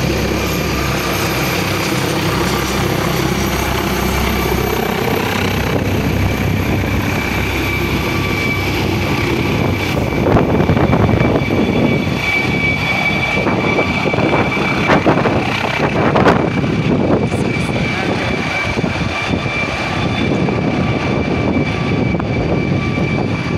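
Air ambulance helicopter flying low overhead and coming in to land: a steady high turbine whine over the loud beat and rush of the rotor. The pitch shifts in the first few seconds as it passes, and the sound grows louder about halfway through.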